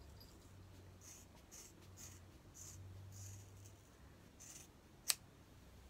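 Scissors working at a thick braid of hair: a string of short, faint rasping strokes, then one sharp snip about five seconds in. The blades are struggling to cut through the thick braid.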